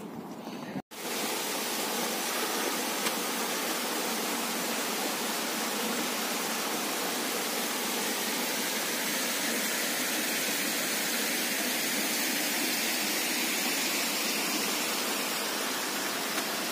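Steady, even rush of water from a mountain waterfall, beginning suddenly about a second in.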